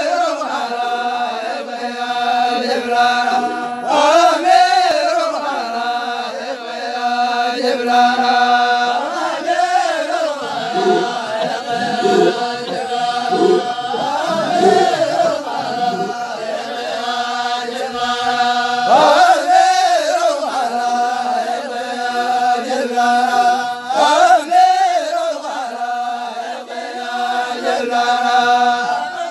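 A group of voices chanting in unison, holding long steady notes, with a rising and falling melodic phrase about every five seconds.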